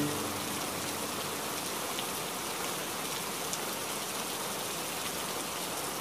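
Steady rush of water falling down a waterfall, an even hiss with no music over it.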